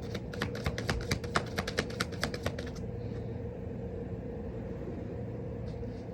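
Tarot cards being shuffled by hand: a quick run of crisp card clicks, about eight a second, for two to three seconds, then it stops. A faint steady hum lies underneath.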